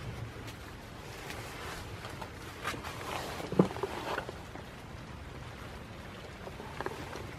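Rustling and a cluster of knocks over a steady low rumble, with the sharpest knock about halfway through and two more near the end.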